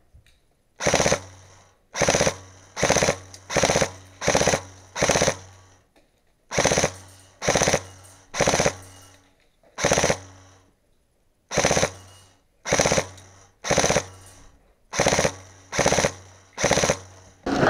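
Classic Army PX9 airsoft electric gun with a V2 gearbox firing a long series of short bursts. Each burst is a quick rattle of shots, and they come about every two-thirds of a second, with two short pauses, one about six seconds in and one about eleven seconds in.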